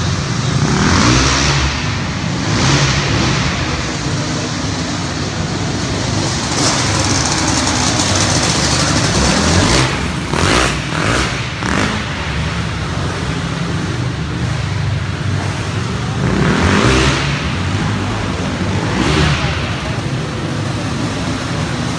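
Racing engines running on a race track, swelling louder and fading again several times as cars pass close by.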